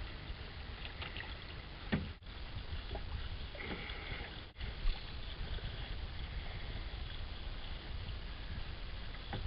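Steady wind and water noise on a boat, with a couple of brief knocks.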